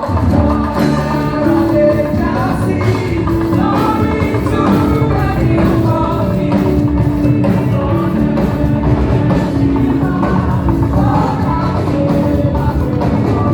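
Upbeat gospel music: a group of voices singing together over a steady, driving beat of drums and percussion.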